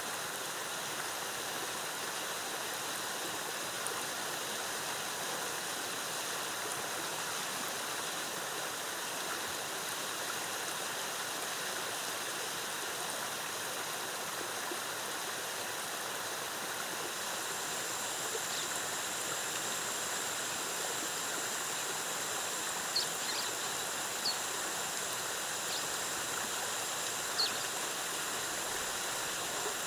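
Waterfall cascading steadily with a constant rush of water. A steady high-pitched tone runs underneath, a second, higher one joins a little past halfway, and a few short high chirps come near the end.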